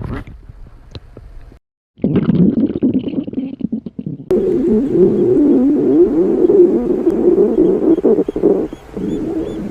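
A woman's stomach growling and gurgling, in spliced stretches: a brief cut to silence about a second and a half in, then, from about four seconds in, a louder, long low growl that wavers up and down in pitch.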